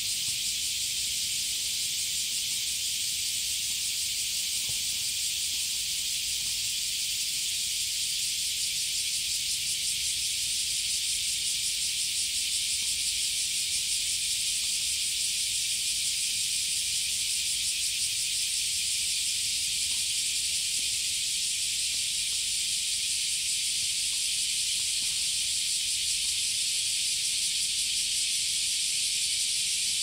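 Large brown cicada (abura-zemi) singing: a steady, high-pitched, hiss-like buzz that carries on without pause or pulsing.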